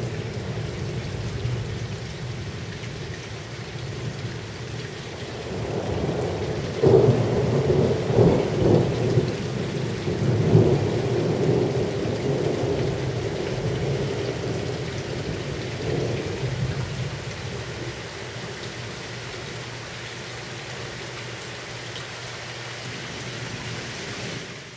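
Thunder from close lightning strikes over steady heavy rain. A sudden loud clap about seven seconds in rolls on in several peaks for about four seconds, with a smaller rumble near sixteen seconds, then only the rain.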